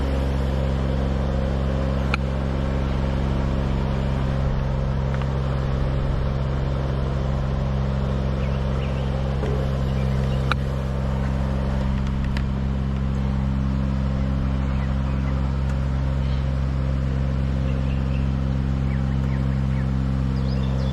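An engine running steadily at one constant speed, with a few faint clicks over it.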